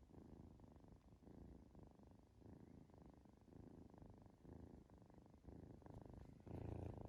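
Kitten purring softly in a steady rhythm of in-and-out breaths, about one a second, growing louder near the end.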